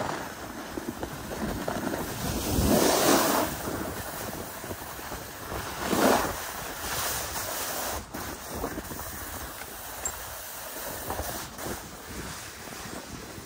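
Snowboard sliding and carving over packed snow, a rushing scrape mixed with wind on the microphone; it swells loudest about three seconds in and again about six seconds in.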